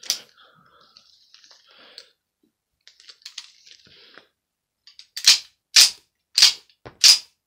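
Slide of an American Tactical M1911 .45 ACP pistol being racked by hand to cycle rounds from a loaded magazine and test ejection. Faint handling clicks give way, about five seconds in, to a quick series of sharp metallic clacks about every half second.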